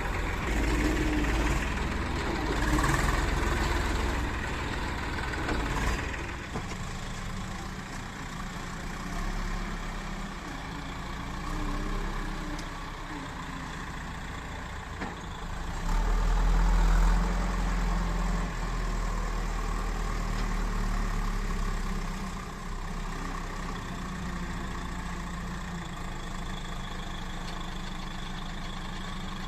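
Heavy diesel engine running, idling for most of the time and working up louder under load twice, over about the first six seconds and again from about 16 to 22 seconds in.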